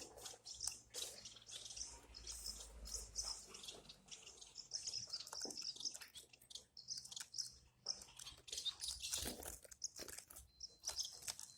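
Many small pipit birds (munias) packed together, giving a dense stream of quick high chirps mixed with scratching and rustling.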